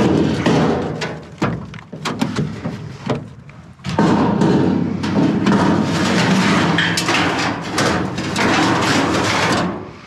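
Scrap sheet metal being loaded into the back of a van. It knocks and clunks at first, then scrapes and slides steadily against the other scrap for several seconds before stopping just before the end.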